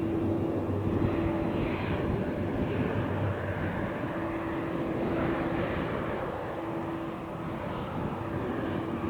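Aircraft engine running: a steady rushing noise with a held hum that drops out and comes back several times.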